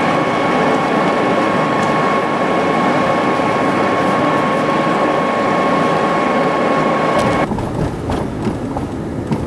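Car driving at highway speed, heard from inside: dense, steady road and running noise with a thin high whine over it. About seven and a half seconds in it cuts abruptly to quieter, deeper driving noise with a few clicks.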